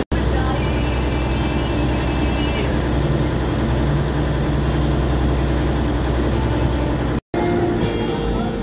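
A passenger river boat's engine running steadily with a low drone while the boat cruises. About seven seconds in, the sound cuts out for a moment and comes back with the engine and a few higher tones over it.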